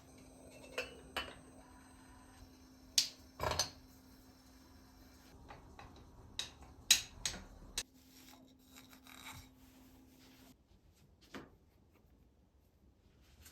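Kitchen handling sounds: scattered light clinks, taps and knocks of utensils and containers, over a faint steady hum that stops about ten seconds in.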